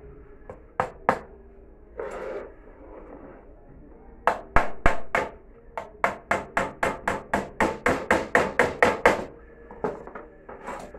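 Hammer driving small nails into a plywood board: two taps, then a run of about twenty quick blows, about four a second, and a few scattered taps near the end.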